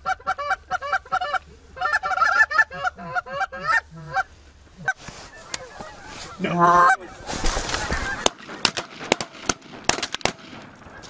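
Geese honking and clucking in quick runs of short calls, several a second, over the first four seconds. Near the end come a rustle and a string of sharp clicks as the hunters sit up out of their grass-covered layout blinds.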